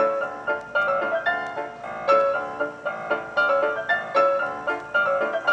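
Instrumental background music, a quick, steady run of struck notes.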